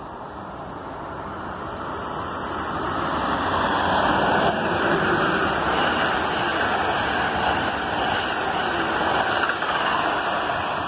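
Amtrak passenger train led by an ACS-64 electric locomotive passing at speed: the noise of wheels on rail and rushing air builds over the first few seconds and stays loud and steady as the cars go by.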